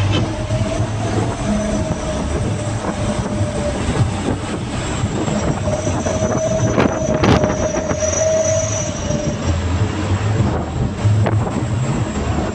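Steady engine and road noise inside a light vehicle's cab while driving at highway speed. A low drone runs throughout, with a faint held whine in the middle and a couple of brief knocks about seven seconds in.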